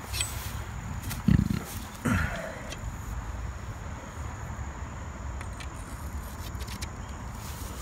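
Low rumbling handling and wind noise on a handheld microphone, with a loud thump about a second in and a short sound falling in pitch just after. A thin steady high insect drone sits underneath.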